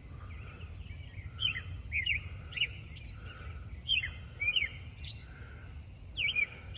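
A songbird close overhead repeating short, sharp chirps, often in quick pairs, over a steady low rumble. Other birds sing softly behind it with an evenly repeated note.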